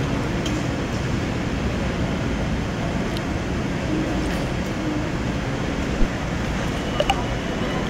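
Steady background noise of a busy airport check-in hall, with faint indistinct voices and a few sharp clicks in the last two seconds.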